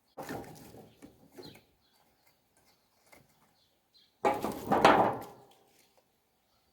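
Firewood being split with an axe: blows knock into the wood near the start, then a louder cluster of hits and cracking about four seconds in.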